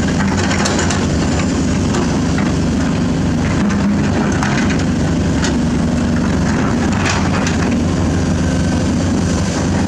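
Hydraulic excavator's diesel engine running steadily under load, with a few scattered sharp knocks, such as rock or steel striking.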